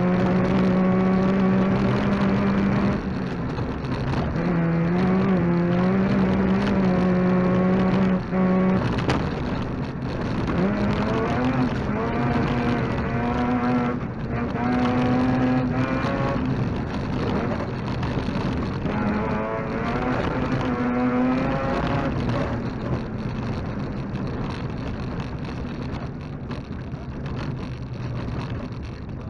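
Mazda RX2 rally car's rotary engine heard from inside the cabin: it holds high revs, breaks off briefly, then climbs in rising pitch several times as it accelerates. Gravel rumbles under the tyres throughout. The engine eases off and gets quieter near the end.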